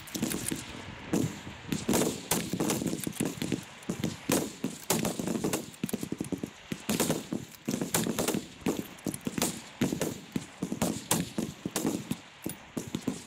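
Rifle fire from a line of shooters firing rapid at once: sharp shots, a few a second at uneven intervals. Among them is a bolt-action .308 Win Tikka T3x Arctic fired prone in five-round strings.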